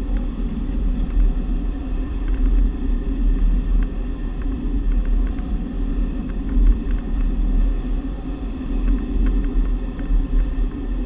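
Steady low rumble of airflow and buffeting in the cockpit of a G103 Twin Astir glider on aerotow, with faint clicks now and then.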